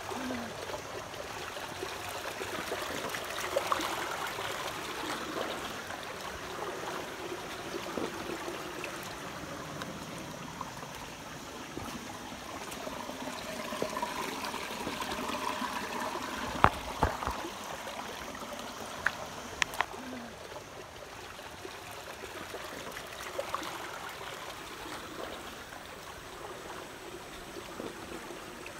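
Shallow, rocky stream trickling and gurgling over stones. A few sharp knocks fall a little past the middle.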